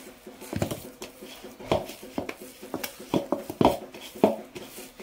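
Soft yeasted flour dough for kuboos being kneaded by hand in a metal bowl: a run of irregular short thumps and knocks as the dough is pressed and turned against the bowl.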